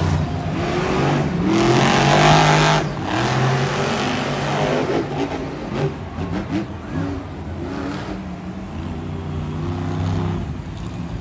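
Monster truck engines revving and running, rising and falling in pitch, loudest about two seconds in, with a few short knocks around the middle.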